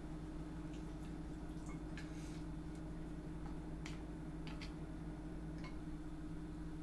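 Chopsticks serving saucy spaghetti from a frying pan onto a ceramic plate: a few faint, scattered clicks and soft wet squishes over a steady low hum.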